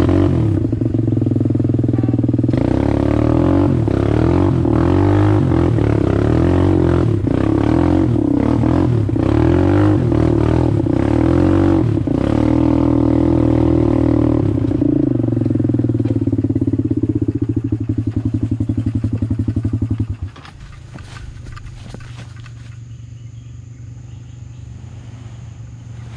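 ATV engine running under throttle over a rough trail, its pitch rising and falling, with clattering knocks from bumps. About twenty seconds in the throttle closes and the engine drops to a much quieter, steady idle.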